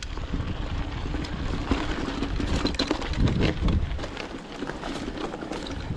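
Mountain bike rolling over a loose, rocky dirt trail: tyres crunching on stones and the bike rattling, many small knocks over a steady low rumble.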